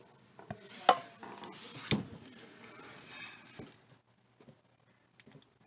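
Hands working on a toilet: two sharp hard knocks, about one and two seconds in, with lighter clatter and rustling between them.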